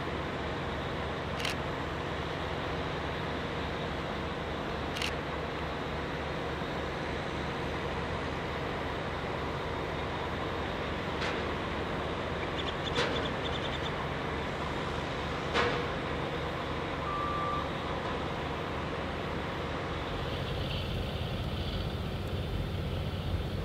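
Heavy machinery's diesel engine running steadily with an even low throb. A few sharp clicks or knocks are scattered through it, and a short single beep sounds about two-thirds of the way in.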